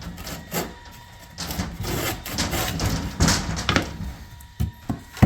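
Wood being handled: a stretch of scraping and rubbing, then a few sharp knocks near the end.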